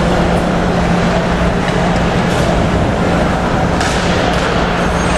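Ice hockey rink din during play: a steady hum under a wash of noise, with a few knocks of sticks and puck on the ice about four seconds in.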